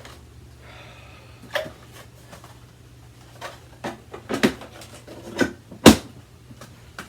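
Irregular clicks and knocks of hands working the bag compartment of a Kenmore Progressive upright vacuum while forcing an ill-fitting dust bag into place. There is a short scratchy rustle about a second in, and the loudest knock comes about six seconds in.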